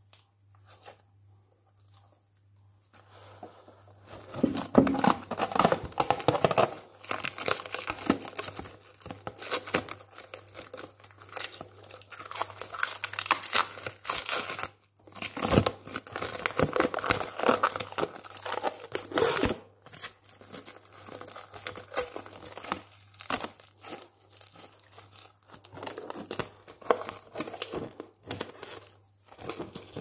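Clear plastic cling film crinkling and being pulled off its roll as it is wrapped around a bare foot. It comes as repeated bursts of rustling and tearing from about three seconds in, with brief pauses around the middle, over a faint steady low hum.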